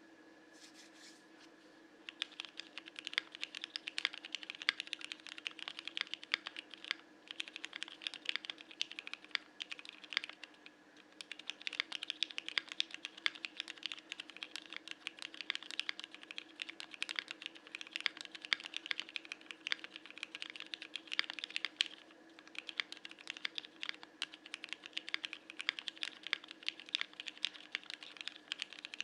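Continuous typing on a CannonKeys Bakeneko mechanical keyboard with Cherry Hyperglide Black linear switches, a fast run of keystrokes starting about two seconds in, with brief pauses about a third of the way through and again later, over a faint steady hum.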